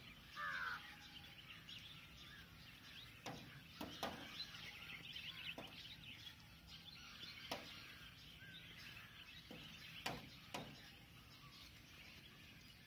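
Faint outdoor ambience with small birds chirping and calling, one clear call about half a second in, and a few scattered sharp clicks.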